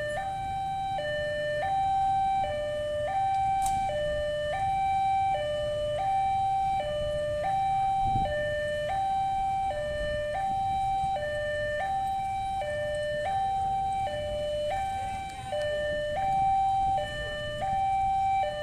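Railway level-crossing warning alarm sounding a steady two-tone hi-lo signal, switching between a lower and a higher pitch about every three-quarters of a second, warning of an approaching train, over a low background rumble.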